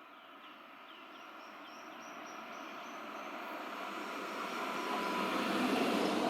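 Tram approaching along the track, its running noise growing steadily louder over several seconds.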